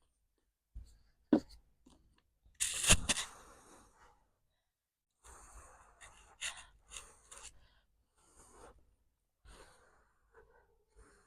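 Close-miked eating sounds of momos being chewed, with wet mouth clicks, and a sharp gasping breath about three seconds in.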